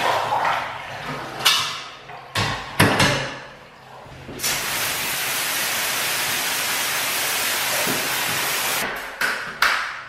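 Water running out of a stainless steel milk bucket as it is drained, then a few sharp metallic clanks as the bucket is handled. About four seconds in, a hose spray nozzle starts a steady hiss of water spraying onto a concrete floor for about four seconds, cut off near the end by a couple of knocks.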